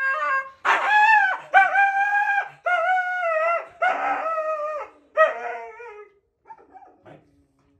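Husky howling in protest at being restrained: five long, held cries in a row, dying away about six seconds in.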